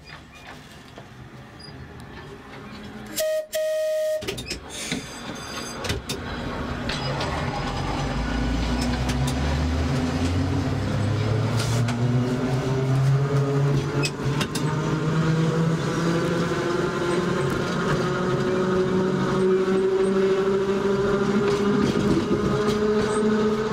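Electric tram, running on 120 V DC from the overhead line, pulling away and gathering speed: its traction motors whine, rising steadily in pitch, over the running noise of the wheels on the rails. A brief loud steady tone sounds about three seconds in.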